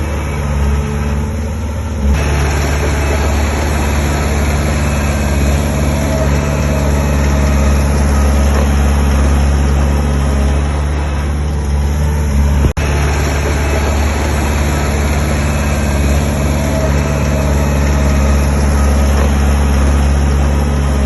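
Heavy diesel engine of construction machinery running steadily, getting louder about two seconds in, with a momentary break about twelve and a half seconds in.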